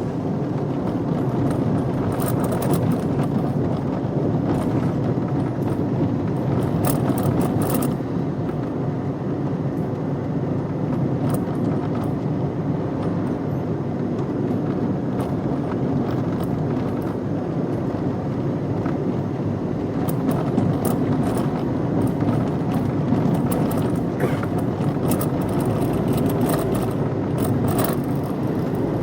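A car being driven at a fairly steady speed: continuous engine and road noise, with scattered light clicks and rattles.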